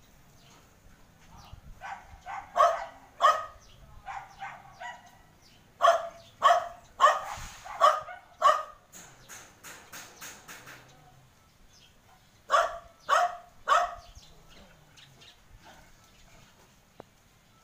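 A dog barking in bouts. There are a few barks about two to three seconds in, a quick run of loud barks from about six to nine seconds, and three more around twelve to fourteen seconds, with fainter barks in between.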